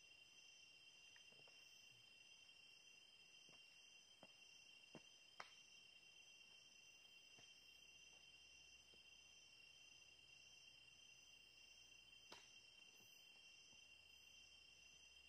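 Faint chorus of night insects in tropical forest: one continuous high trill, with a higher call pulsing in an even rhythm above it. A few faint clicks, the sharpest about five seconds in and near twelve seconds.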